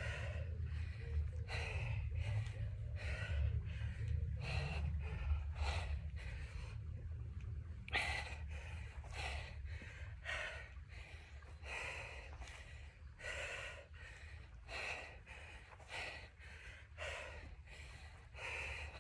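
A woman breathing hard through lunges: short, forceful breaths in and out, roughly one a second, with a brief pause about two thirds of the way through, over a steady low rumble.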